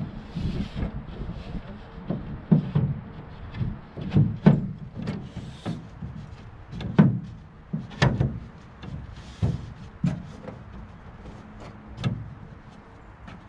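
Irregular knocks and clunks against the inside of a jon boat's hull, as material is worked into place against the transom by hand, a strong knock every second or two.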